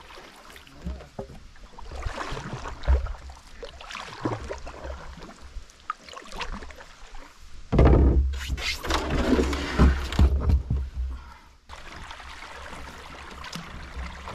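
Canoe paddling on calm water: irregular splashes and drips from paddle strokes with occasional knocks on the hull. About eight seconds in, a louder, rougher stretch lasts around three seconds, then the sound drops suddenly to a steady quiet hiss.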